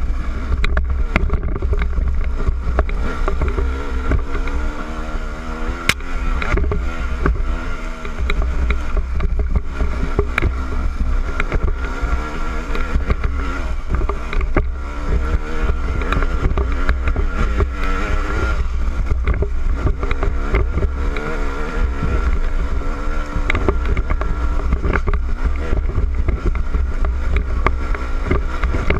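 KTM 200 EXC two-stroke single-cylinder engine revving up and down over and over as the enduro bike climbs a rocky trail, heard from a helmet-mounted camera, with scattered sharp knocks.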